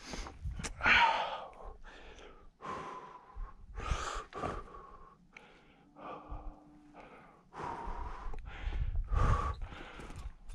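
A climber's heavy breathing, a run of quick breaths about one a second, easing for a couple of seconds midway before picking up again.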